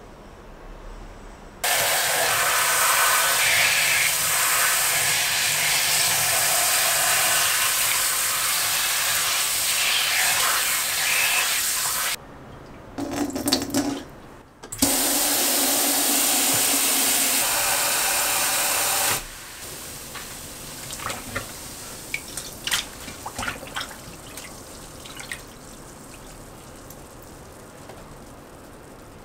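Tap water running hard into a stainless steel bowl, in two long pours with a short break between. After that, softer scattered splashes and light knocks of hands working in the water.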